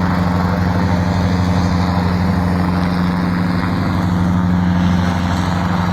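Helicopter running nearby: a steady, even engine hum with no change in pitch.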